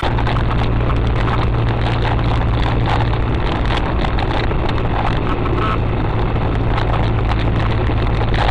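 Steady in-cabin driving noise picked up by a car dashcam on a wet road, with tyre and road noise over a constant low engine drone.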